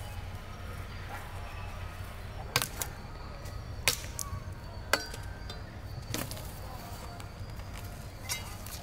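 A handful of sharp knocks or taps, irregularly spaced about a second apart through the middle stretch, over a steady low hum.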